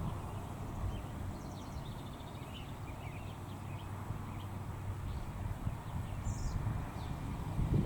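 Outdoor ambience with small birds chirping faintly in short bursts over a steady low rumble. The low rumble grows louder right at the end.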